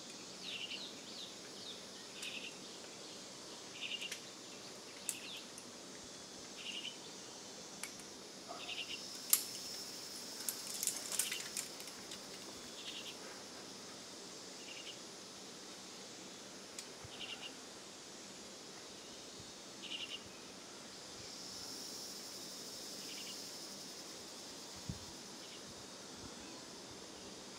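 Outdoor wildlife ambience. Short high chirps repeat every second or two over a steady high hiss, with a cluster of sharp clicks near the middle.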